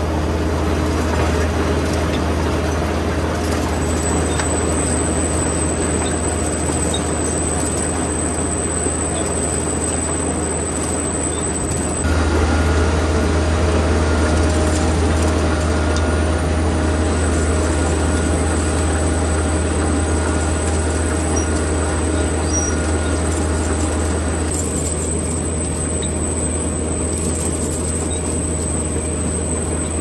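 Grimme potato harvester running while lifting, a steady low drone with the continuous clatter of its webs and separators carrying soil and potatoes. The sound shifts abruptly about twelve seconds in and again near twenty-five seconds.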